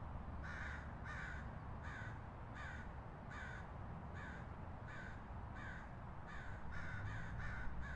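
A crow cawing repeatedly, about a dozen short harsh caws at an even pace that comes a little faster near the end, over a low steady rumble of city background.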